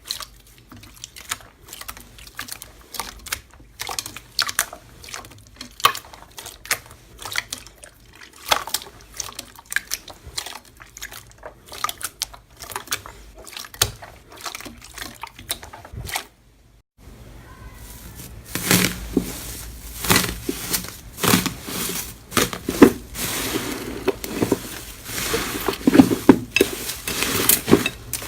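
Slime squished and poked by hand: a run of small wet clicks and crackles, cut off briefly about sixteen seconds in, then louder and denser squishing.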